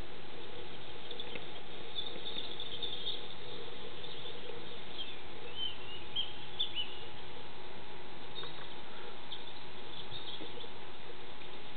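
Birds chirping in short, rising and falling calls over a steady background hiss with a faint constant hum.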